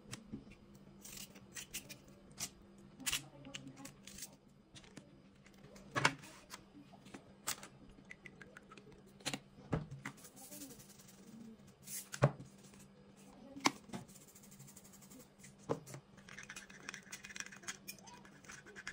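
Irregular light taps and clicks of raw vegetable pieces being set down on a parchment-lined baking tray, over a faint steady hum. Near the end, a brief scratchy scraping as herbs are stirred into olive oil in a small glass bowl.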